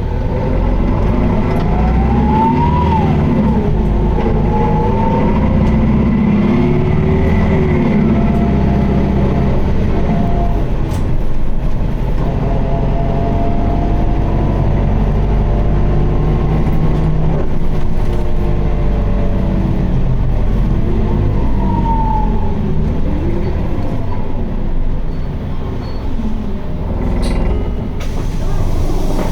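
Inside an Isuzu Erga QDG-LV290N1 city bus, its four-cylinder diesel engine running with whining tones that rise and fall, the bus slowing for a stop. This bus is known for an abnormal noise and heavy vibration.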